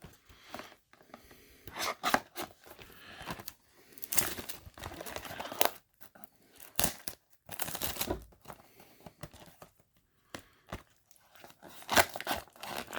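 Product packaging being torn and pulled open by hand, with tearing and crinkling in irregular bursts and pauses; the box is stubborn and slow to open.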